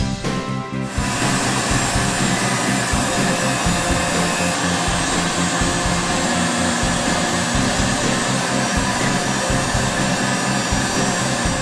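Tormach PCNC 770 mill's spindle running as a 60° engraving bit cuts the copper of a copper-clad circuit board, a steady motor whirr with cutting noise that starts about a second in, over background music.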